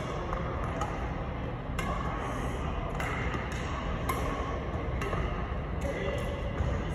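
Badminton rackets striking a shuttlecock in a rally, sharp short hits about once a second, over a steady low background hum.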